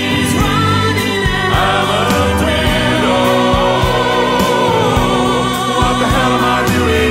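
Male vocal quartet singing in harmony over a band backing with bass and a drum beat, the voices holding long notes with vibrato.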